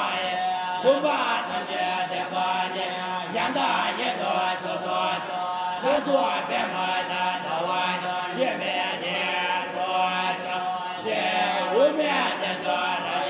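Young Tibetan Buddhist monks chanting a text aloud in a sing-song recitation. The phrase rises and falls and repeats about every two and a half seconds over a steady low drone of voices.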